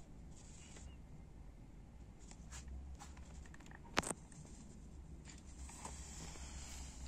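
Faint steady background rumble with scattered small ticks and one sharp click about four seconds in.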